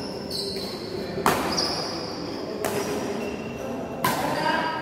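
Shuttlecock struck back and forth by badminton rackets in a doubles rally: four sharp hits roughly a second and a quarter apart, the loudest a little over a second in.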